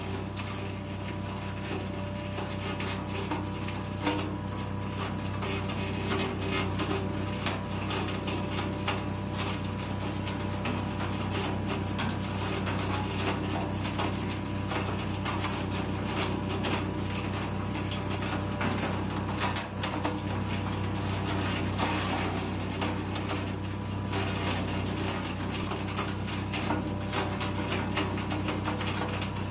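Petrol-engined garden wood chipper-shredder running at a steady speed, with a dense crackle of branches being chipped.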